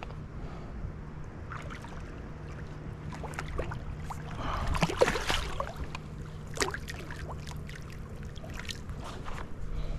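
Water splashing and dripping at a fishing kayak, with scattered sharp clicks and knocks. A louder splash comes about five seconds in.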